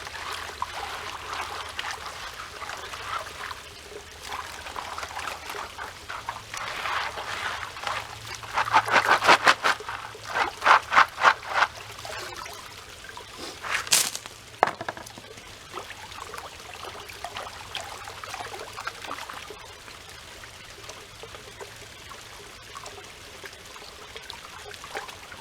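Water sloshing in a gold pan as gravel is shaken and swirled in a pool, with a burst of quick rhythmic sloshes, several a second, about a third of the way in, and a single sharp knock a few seconds later. A trickle of water runs steadily underneath.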